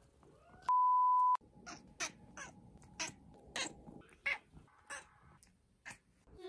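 A loud, steady electronic beep lasting just over half a second, about a second in. Then a quick run of about ten short cat cries ('악!' and '앙').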